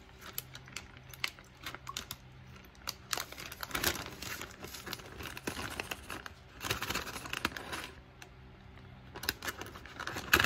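Plastic zip-top bag crinkling as it is handled, in irregular crackling bursts with small clicks, loudest about four seconds in, around seven seconds and near the end.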